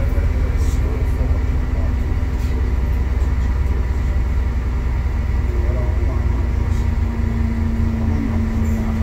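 Alexander Dennis Enviro400 MMC double-decker bus under way, heard from inside the passenger cabin: a steady low engine and road rumble with a faint hum over it and a few light rattles.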